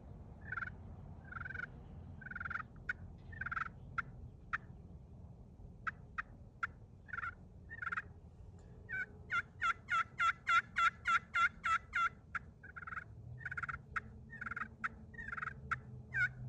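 Friction turkey pot call with a purple slate surface over a stainless steel soundboard, in a pheasant wood pot, played with a striker. It makes scattered yelps and sharp clucks, then a fast run of about a dozen yelps, roughly four a second, starting about nine seconds in, then more spaced yelps.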